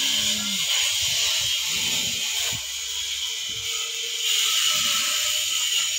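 Steady high-pitched hiss that cuts off suddenly near the end.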